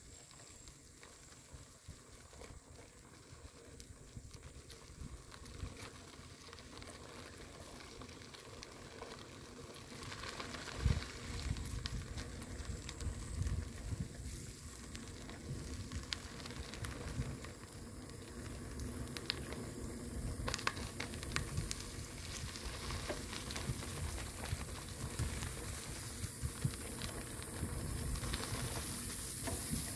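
Bicycle tyres rolling over a sandy dirt track: a steady crackling hiss full of small ticks of grit, growing gradually louder, with low rumbling gusts of wind on the microphone from about a third of the way in.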